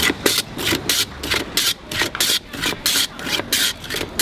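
Block of ice scraped back and forth across the blade of a wooden hand ice shaver, a rasping stroke about three times a second as it shaves ice.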